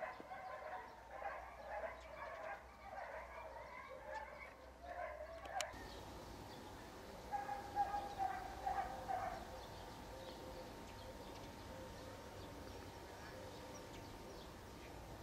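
Outdoor ambience with many short animal calls, which cut off abruptly about six seconds in. A quieter steady background follows, with a few longer calls around eight seconds.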